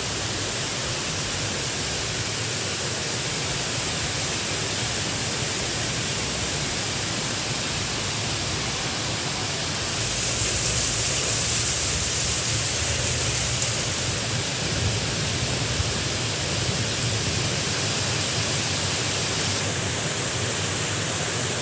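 Heavy downpour of rain, a loud steady roar. It grows brighter and a little louder for a few seconds about halfway through.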